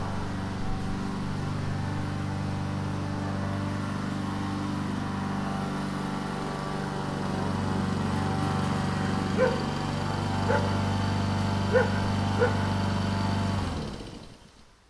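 Petrol lawn mower engine running steadily under load, then dying away near the end as it stops. A dog barks four short times toward the end.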